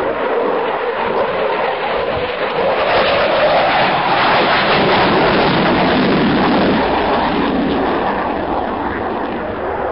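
Jet aircraft flying past, its noise swelling to a peak about halfway through and then fading.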